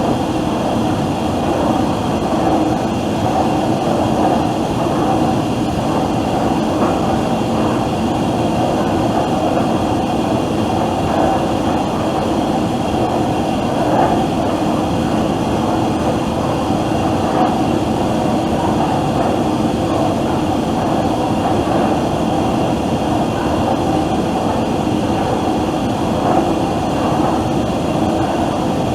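Factory ambience: a steady din of running machinery with a few constant humming tones and faint intermittent clatter, without pauses or swells.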